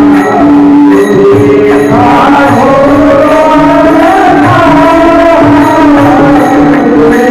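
Marathi devotional abhang singing with accompaniment: a steady held note underneath, a voice gliding through the melody from about two seconds in, and a drum and small cymbals keeping an even beat.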